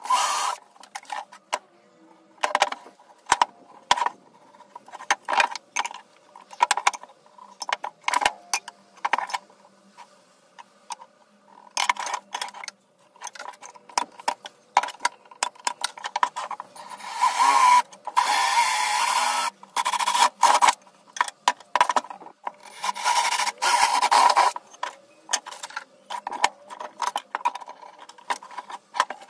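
Wooden boards and hand tools handled on a wooden workbench: scattered knocks and clacks, with a few longer stretches of wood sliding and scraping lasting a second or two.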